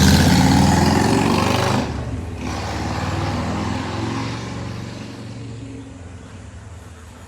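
Harley-Davidson Iron 883 V-twin through aftermarket Radium exhaust, riding away: loud at first, with a sudden dip about two seconds in, then fading steadily into the distance. The exhaust note is deep.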